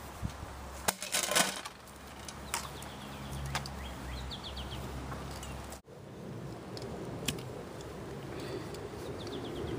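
A brief jingle and clatter of metal gear about a second in, then open-air ambience: a steady low rumble with small birds chirping in short runs of quick notes. The sound cuts out for an instant a little after halfway.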